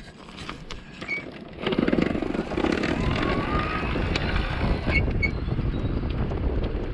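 Kettler e-bike being ridden on a forest track: steady rolling and drivetrain noise that picks up about two seconds in, with a few light ticks near the end. The motor is running, and the rider says it sounds dry and in need of greasing.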